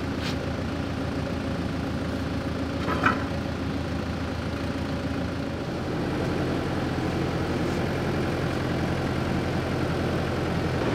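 Forklift engine idling steadily, a little louder from about halfway through, with a single light knock about three seconds in.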